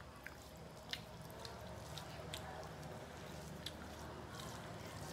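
Fingers mixing rice and curry on metal plates: soft wet squishing with a few sharp clicks, over a steady low hum.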